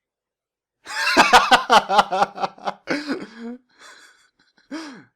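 A man laughing, a quick run of short ha's about five a second that trails off, then a short breathy laugh near the end.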